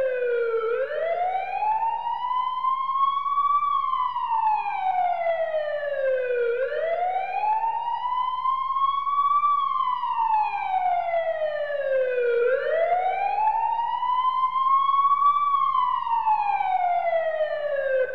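Emergency vehicle siren in a slow wail: the pitch rises for about three seconds and falls for about three, three full sweeps up and down. Under it runs a faint steady low hum.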